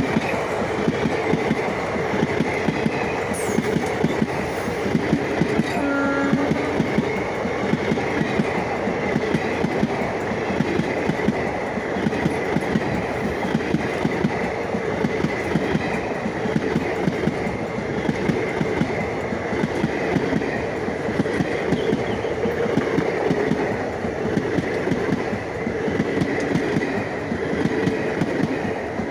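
Indian Railways passenger train coaches rolling past at close range: a steady rumble with a dense clickety-clack of wheels over the rails.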